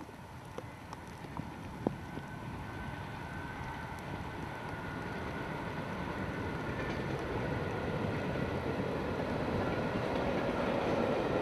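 Class 73 electro-diesel locomotive hauling a train of coaches, growing steadily louder as it approaches, with a steady high tone joining about two seconds in. A few faint clicks sound in the first two seconds.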